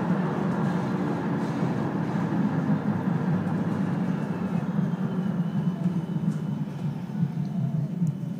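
Amsterdam tram running along its rails, heard from inside the car: a steady rumble of wheels and running gear, with a faint whine dropping in pitch in the second half.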